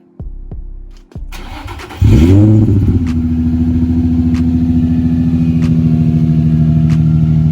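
Nissan 350Z's 3.5-litre V6 starting: the starter cranks briefly, the engine catches about two seconds in with a short rev flare, then settles into a steady idle that cuts off suddenly at the end.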